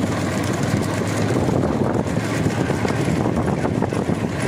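Motor vehicle engines running steadily, with wind on the microphone.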